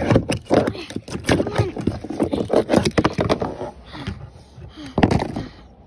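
Water sloshing and splashing, with knocks and scrapes of ice pieces and plastic toy horse figurines, as the horses are pushed through icy water in a plastic tub; wordless voice sounds come in at times, and the splashing fades near the end.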